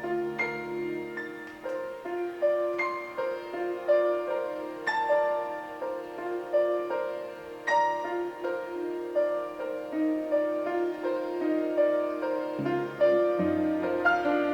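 Piano music: a slow melodic line of single struck notes over a held middle tone, with deeper bass notes coming in near the end.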